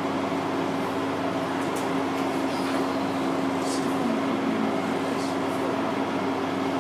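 Steady room hum and hiss with a constant low tone running underneath, no distinct events.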